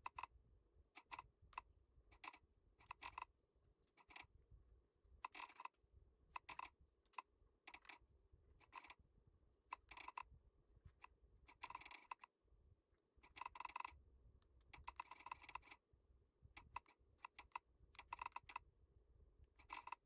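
Redragon K596 Vishnu mechanical keyboard being typed on: faint, irregular bursts of key clicks, a few keystrokes at a time, with short pauses between.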